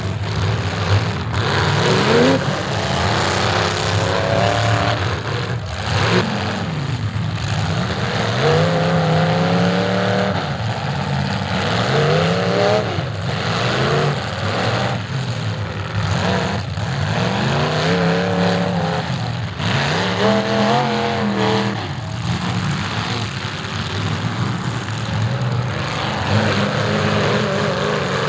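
Demolition derby car engines revving hard, their pitch rising and falling again and again over the steady noise of several running engines.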